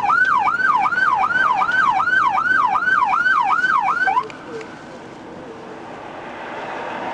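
Police car siren in fast yelp mode, about three falling sweeps a second, cutting off suddenly about four seconds in; steady road and wind noise remain after it.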